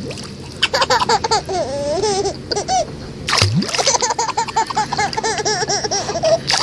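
Baby giggling in long runs of high laughter, with pool water splashed by hand around it; a louder splash comes about halfway through.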